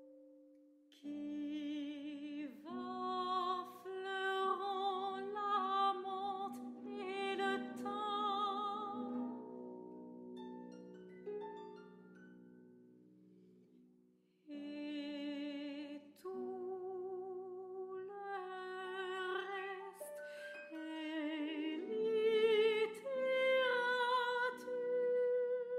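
Operatic soprano singing with a wide vibrato over sustained instrumental accompaniment. The music fades about ten seconds in and comes back with a new phrase a few seconds later.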